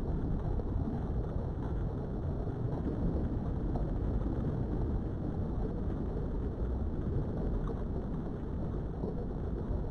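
A steady low rumbling noise with no distinct events in it.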